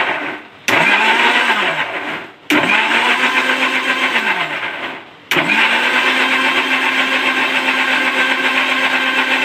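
Prestige Iris 750 W mixer grinder blending bananas, soaked almonds and sugar with a little milk. It is switched on in short pulses: three runs of a second or two, each rising in pitch and then sinking as the motor coasts down. From about halfway it is held on at a steady pitch. Running it gently in bursts grinds the almonds and banana smooth without leaving chunks.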